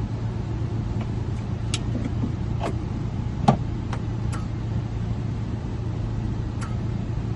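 A car engine running steadily with a low hum, with a handful of small clicks over it, the loudest about three and a half seconds in.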